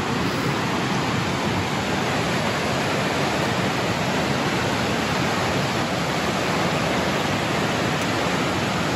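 Steady, even rushing of a large waterfall, river water cascading down a rocky gorge.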